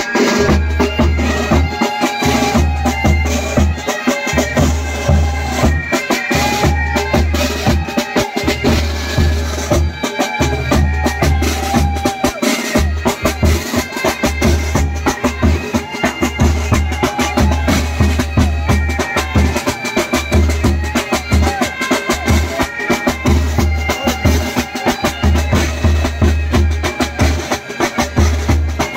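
Military pipe band playing: bagpipes carrying a melody over their steady drones, with a bass drum beating a steady heavy pulse and side drums rattling along.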